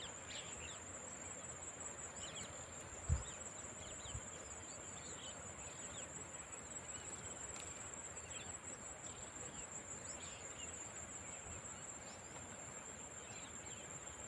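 Insects trilling in one steady high-pitched drone, with faint bird chirps over it. A single dull thump about three seconds in.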